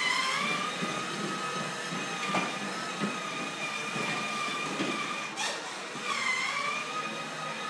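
Electric motor and gearbox of a battery-powered VW Beetle ride-on toy car running with a steady whine, its pitch dipping briefly and recovering at the start and again about six seconds in. A few light knocks come a couple of seconds in as the plastic car rolls over the tile floor.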